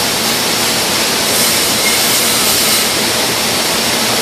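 Welding arc hissing steadily, a loud even hiss that is strongest in the high range and gets a little brighter for about a second and a half near the middle.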